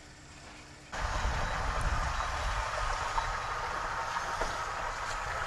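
Outdoor harbour ambience that starts abruptly about a second in: a steady low rumble with a rushing noise over it.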